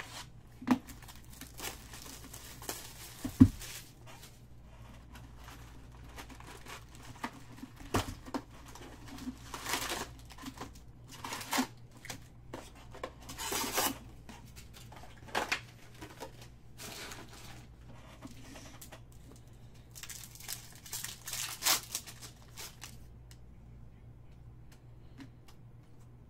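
Cardboard hobby box and foil-wrapped packs of 2019 Topps Chrome Jumbo baseball cards being torn open and crinkled by hand. There are a few sharp knocks in the first eight seconds, and the sound turns quieter after about 23 seconds.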